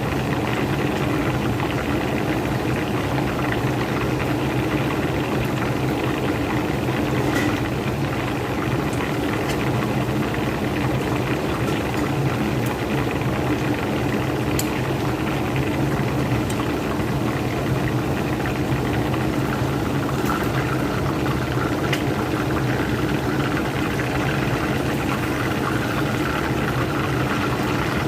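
A whole chicken deep-frying in hot oil: a steady bubbling, with occasional faint pops.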